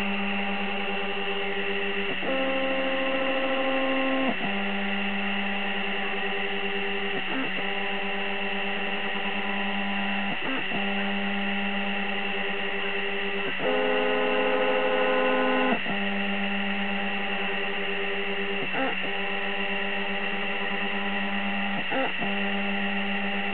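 Stepper motors of a homemade laser engraver whining as they drive the head, each move a steady set of tones that switches abruptly to new pitches every few seconds, with a louder, higher whine for about two seconds a little past the middle. A steady hiss runs underneath.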